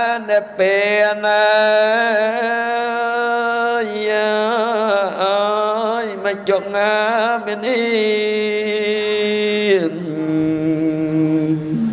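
Khmer Buddhist smot: a monk's solo male voice chanting verses through a microphone in long held notes with wavering, ornamented turns, settling onto a lower note near the end.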